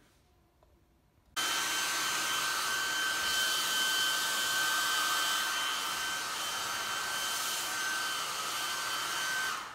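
Handheld electric heat gun switched on about a second in and blowing steadily, a rush of air with a steady high whine over it, until it is switched off near the end.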